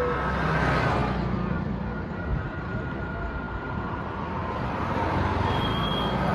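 Street traffic: motor vehicles running and passing close by, with engine rumble. One passes about half a second in and another near the end.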